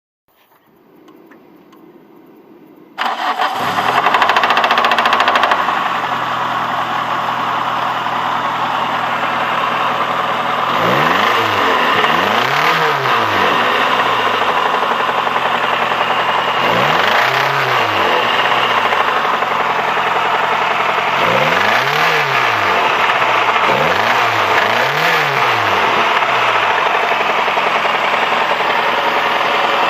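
Toyota 4A-GE twin-cam four-cylinder engine starting about three seconds in, running at a fast idle, then idling while the revs are blipped up and back down several times. The engine has a knock that the owner calls an unpleasant warning sign.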